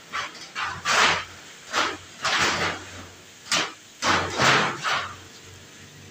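A hand scraping and rubbing along the metal tray and frame of a bird cage, making a series of short, irregular scraping noises that stop about five seconds in.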